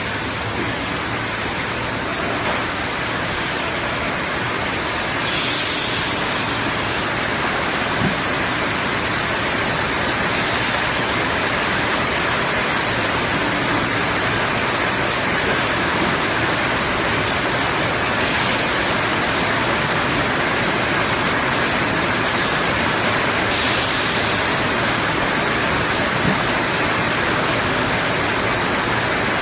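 Steady loud hiss and running noise of an automatic plastic blow-forming machine for lamp covers on a factory floor, with two short louder hisses, about five seconds in and again near the end.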